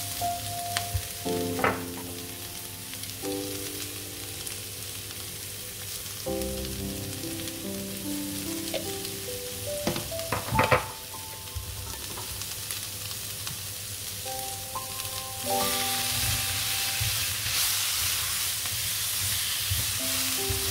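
Winged beans stir-frying in a nonstick wok: a steady sizzle with a spatula stirring and scraping through the beans, two sharp clicks, and the sizzle growing louder and brighter about two-thirds of the way in. Soft background music with held notes plays underneath.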